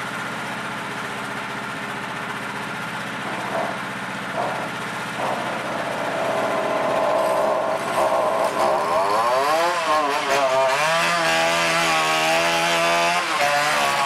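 Small gasoline engine running at a steady speed, then from about eight seconds in revving up and easing off several times, its pitch rising and falling.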